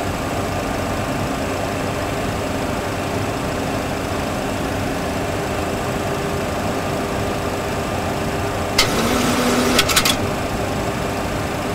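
Steady engine and airflow hum in a Boeing 737 full flight simulator cockpit during a single-engine approach. About nine seconds in there is a brief burst of noise with a short low tone.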